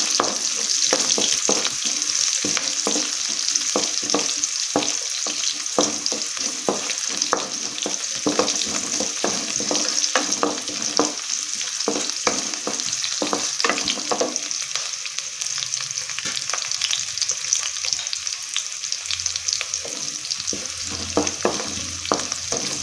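Shallots, garlic and curry leaves sizzling in hot coconut oil in a pan as they are sautéed, with a spoon clicking and scraping against the pan. The stirring clicks come thick and fast, then thin out about two-thirds of the way through while the sizzle carries on.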